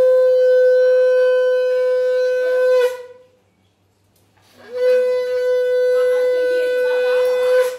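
Conch shell (shankha) blown in two long blasts, each held on one steady note; the first breaks off about three seconds in, and the second starts a second and a half later and runs on until just before the end.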